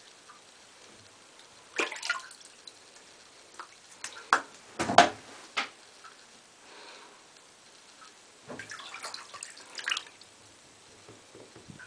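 Shallow bathwater in a tub being splashed and swished, a string of separate splashes and drips with quiet gaps between, the loudest about five seconds in and a busier run of small splashes near the end.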